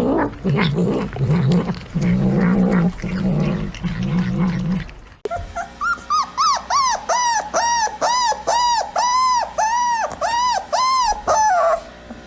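A dog grumbling in low, drawn-out growly vocalizations for about five seconds. After a cut, a dog whining in a run of about a dozen high-pitched calls, each rising and falling, about two a second.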